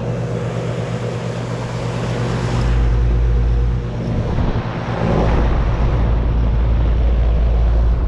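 2012 Bryant Legacy Line 2.5-ton central air-conditioner condenser unit running: a steady hum from the scroll compressor under the rush of the condenser fan's air. About three seconds in, and again from about halfway, a deep rumble of wind buffeting the microphone as it is held over the fan's discharge grille.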